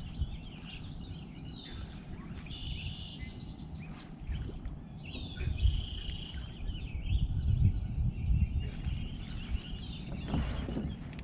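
Wild birds singing and chirping, with short trills a few seconds in and again around the middle, over a steady low rumble on the microphone. Near the end comes a brief rush of noise.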